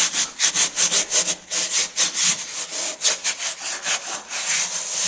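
Rubbing back and forth on vinyl floor covering in quick strokes, about four a second, smoothing out a glue-injected wrinkle to spread the glue underneath.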